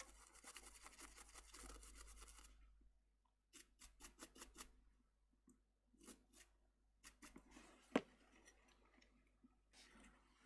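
Faint scrubbing of a small brush with isopropyl alcohol on the circuit board around a freshly soldered charge port, for the first couple of seconds, then scattered light clicks and scrapes with a sharper tick about eight seconds in.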